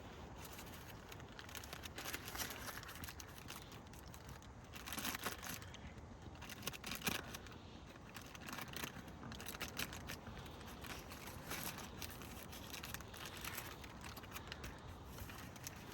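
Sandwich wrappers crinkling and tearing in irregular bursts as hot sandwiches are unwrapped and handed out.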